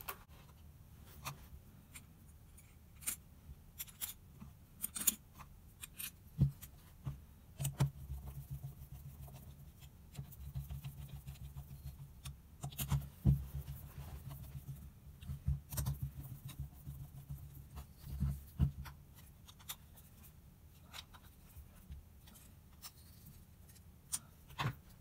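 Screwdriver working the float bowl screws of a Mikuni BS34 carburettor: scattered small metal clicks, taps and scrapes as the screws are turned and the carb is handled, busiest in the middle of the stretch.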